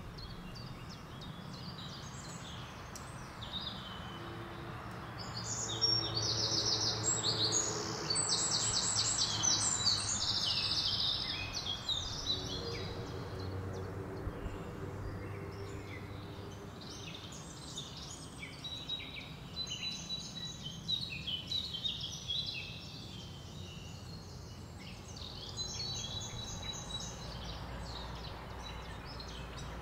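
Several birds chirping and trilling over a steady outdoor hiss, the calls busiest and loudest from about five to twelve seconds in.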